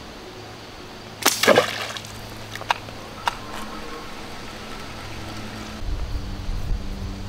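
A slingbow shot about a second in: a sharp snap of the release, then the bowfishing arrow splashing into the pond. A few clicks follow as the line is wound back on the bowfishing reel.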